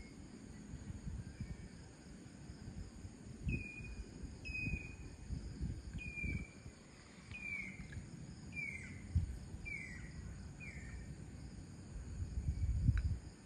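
Steady high-pitched chirring of crickets and other insects, with a bird giving a series of seven short calls, each gliding down in pitch, about one a second in the middle. A low rumble comes and goes underneath, loudest near the end.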